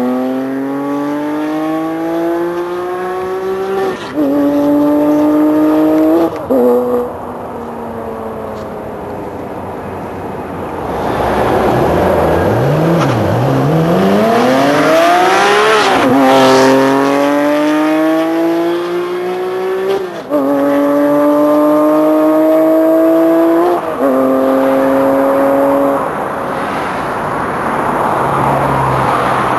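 Porsche 997 GT3 RS flat-six through an FVD race exhaust, accelerating hard through the gears: the revs climb and drop at each upshift, fading as the car pulls away. About halfway through, the car comes back, passes close with a drop in pitch about 16 seconds in, and pulls away again through three more upshifts.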